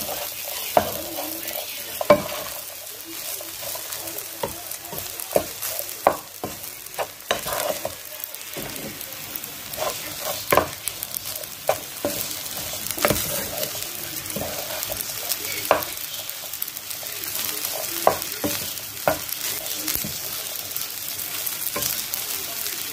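Wooden spatula stirring and turning fusilli pasta in a frying pan: irregular scrapes and knocks against the pan over a continuous sizzle of frying.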